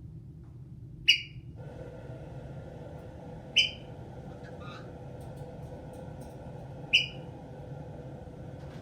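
Caique parrot giving three short, sharp high-pitched chirps, spaced a few seconds apart, over a steady hum that starts about one and a half seconds in.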